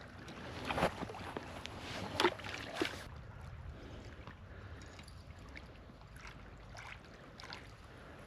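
Water lapping and trickling, with a few sharp splashy strikes about one second and two to three seconds in, then smaller ones.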